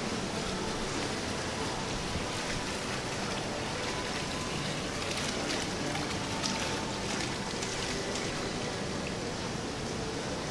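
Steady splashing and trickling of water in a garden's stone water basin, a little brighter for a couple of seconds around the middle.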